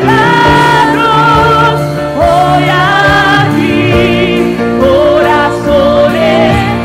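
Live gospel worship music: singers hold long notes with vibrato and slide between pitches over a band of electric guitars and keyboard.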